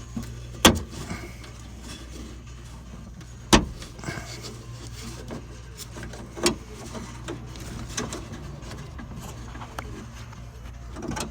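Sharp clicks and knocks of hands and tools working the door lock's small plastic clips and linkages inside a car door: three louder ones about three seconds apart, then fainter ones, over a steady low hum.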